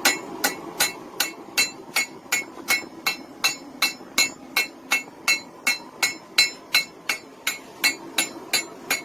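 Hand hammer striking a hot railroad spike on an anvil in a steady rhythm of nearly three blows a second. Each blow gives a sharp metallic clink with a short ring.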